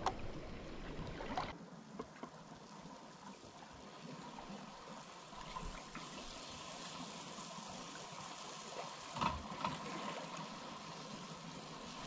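A pan of squid sauté with tomatoes and peppers simmering and bubbling steadily, with a short knock about nine seconds in.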